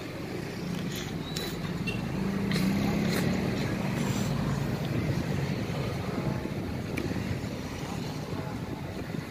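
Low, steady rumble of passing street traffic, swelling for a few seconds in the middle, with a few faint clicks.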